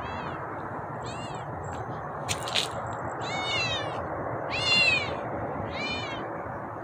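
Kitten meowing five times, high-pitched calls that each rise and fall, the fourth loudest, over steady background noise. A brief sharp click sounds near the middle.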